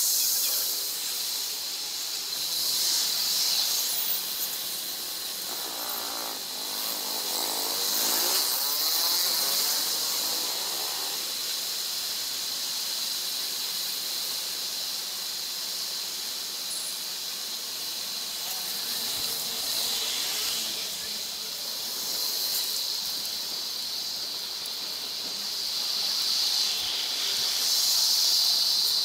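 Street traffic and wind picked up by a bicycle-mounted action camera and played at three times speed, a steady hiss throughout. About six to eleven seconds in, and again around twenty seconds, a passing vehicle's sound sweeps up and down in pitch.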